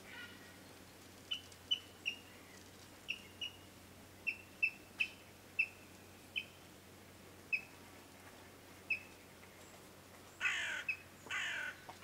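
Yellow-billed kingfisher calling: a series of short, sharp chirps at uneven intervals, then two louder, longer, harsh rasping calls near the end.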